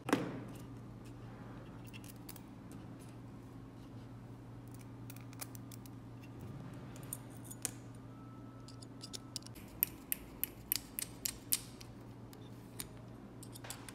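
Light metallic clicks and taps of a hex screwdriver, small screws and a metal top plate against a metal scale model truck chassis as the plate is fitted and screwed down. One sharp click at the start, then scattered clicks that come quickly in the second half, over a steady low hum.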